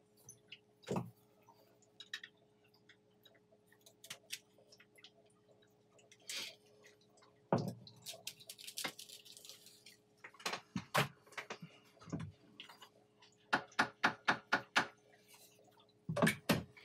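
Small tools being handled on a jeweller's workbench: scattered clicks and knocks, with a quick run of taps about two-thirds of the way in, over a faint steady hum.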